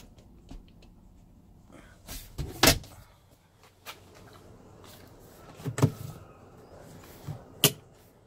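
Three sharp clunks and knocks of car interior fittings being handled, the loudest about two and a half seconds in, with small clicks and rustle between them.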